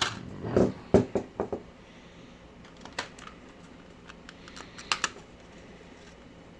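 A few light clicks and knocks of objects being handled, bunched in the first second and a half, then single clicks about three and five seconds in.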